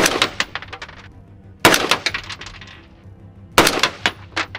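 Three rifle shots from an AR-15 with a 13.7-inch Noveske barrel in 5.56, about two seconds apart, each followed by a ringing echo that fades over about a second.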